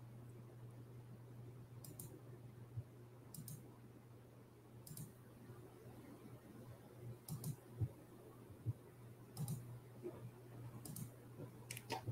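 Faint computer mouse clicks, about seven of them a second or two apart, several coming in quick pairs, over a low steady hum.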